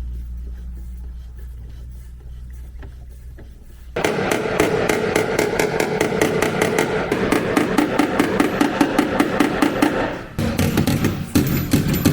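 A low rumble fades out. Then, about four seconds in, rapid, evenly paced hammer strikes on metal start abruptly, with a steady ringing tone under them. They pause briefly near the end and then start again.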